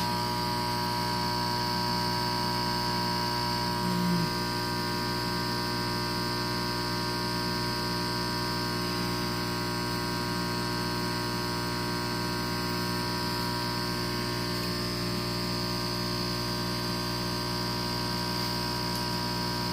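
Exhaust fan motor humming steadily under power without turning: the motor is stalled, and its wiring is burning.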